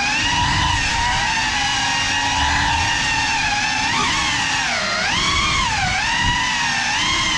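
Small FPV quadcopter's electric motors and propellers whining. The pitch rises and dips repeatedly as the throttle changes, with the deepest dips near the middle.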